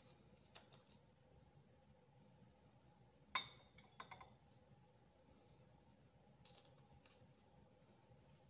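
A few light clicks of a mouthwash bottle and its measuring cap being handled, then about three seconds in a sharp clink with a brief high ring as the cap knocks against a glass tumbler, followed by two softer clinks.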